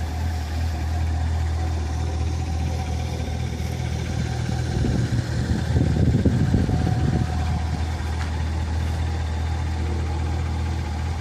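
A car engine idling steadily with a low, even hum. A short rush of noise swells about five to seven seconds in.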